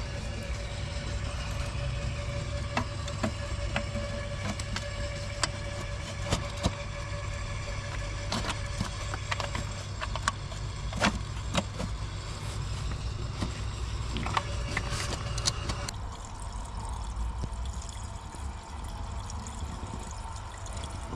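Zetor 25K tractor's two-cylinder diesel engine idling steadily, with occasional sharp clicks.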